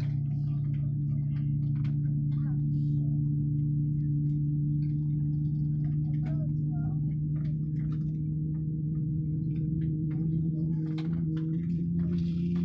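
Steady hum of a parked airliner's onboard systems heard inside the cabin, one even drone with overtones that steps slightly up in pitch near the end. Faint passenger chatter and small clicks sit over it.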